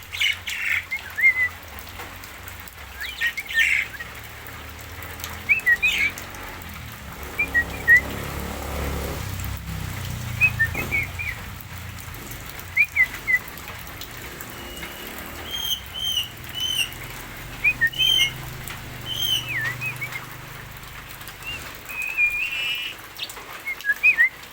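Javan myna (jalak kebo) calling in a varied run of short whistles, squawks and chirps, each a quick slurred note, coming in irregular bursts.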